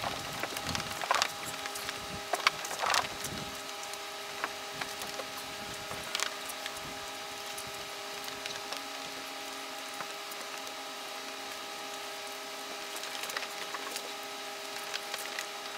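Microfibre cloth buffing wax on car paintwork: scattered rubbing swishes and crackly ticks, busiest in the first few seconds, over a steady background hum.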